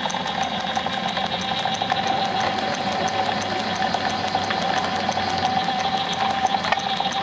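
Belt-driven drill press running with a steady hum and a rapid, even ticking several times a second. A drill bit cutting into a rubber hockey puck adds a steady whine through most of it, fading out near the end.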